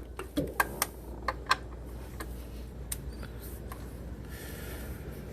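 A wrench clicking and clinking as it is fitted onto the serpentine belt tensioner bolt in the engine bay, a series of separate sharp clicks, then a brief scraping rustle about four seconds in.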